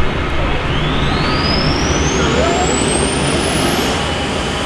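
Small gas turbine in a pulling garden tractor spooling up on start: a thin whine rises steadily for about three seconds, then holds at a high, steady pitch. Underneath is a loud, steady, low engine rumble.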